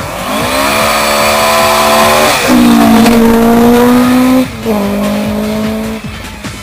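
Rally car engine revving hard as the car comes past at speed. The pitch climbs quickly at first, steps up about two and a half seconds in, then dips and drops back two seconds later before the sound fades.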